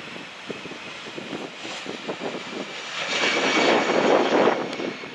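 Airbus A320 jet engines at takeoff power, a rushing roar that swells about three seconds in and eases off near the end as the airliner lifts off.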